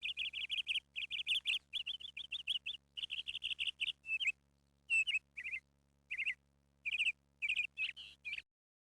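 A small bird chirping in rapid runs of quick high chirps, about five or six a second, with short pauses between runs, over a faint steady low hum; it cuts off suddenly near the end.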